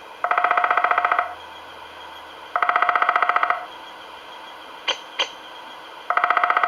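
Recorded bird call from a National Audubon Society singing bird wall clock's speaker: a rapid, even, trilling call about a second long, played three times. Two short clicks come between the second and third calls.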